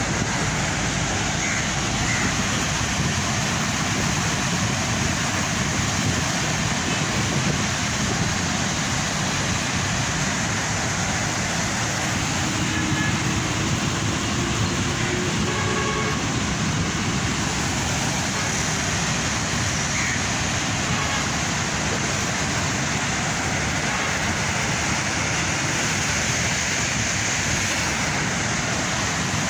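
Steady rush of floodwater churning through and below the gates of a river barrage, an even, unbroken noise.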